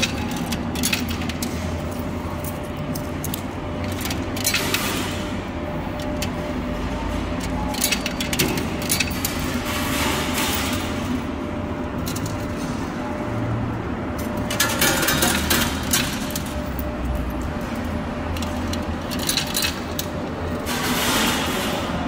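Coins dropped into a coin pusher machine, clicking and clinking against the metal and the piled coins, with a short jingling clatter about every five seconds as coins spill and slide. Under it runs a steady arcade hum.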